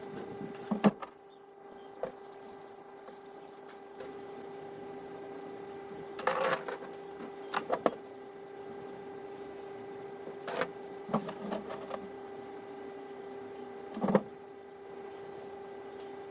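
A steady electric hum from a small motor or fan, with scattered clicks and short rattling taps of small tools being handled, the sharpest about a second in and near the end.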